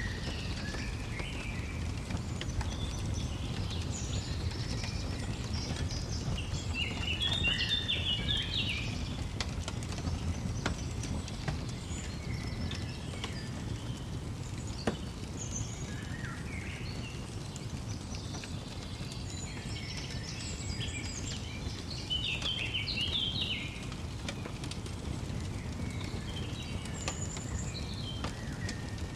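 Songbirds chirping and singing in short scattered phrases, over a steady low rumble with occasional sharp crackles of a wood fire.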